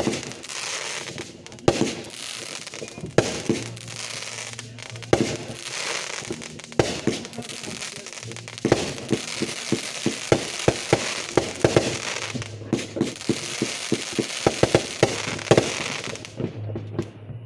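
Consumer aerial fireworks going off: loud bangs every second or two over a steady crackling hiss. From about nine seconds in they give way to a rapid string of sharp pops, several a second.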